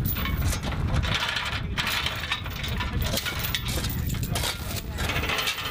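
Many quick metallic clinks, knocks and gravel scrapes as a gun crew handles an M777 howitzer's trails and tools, over a steady low rumble.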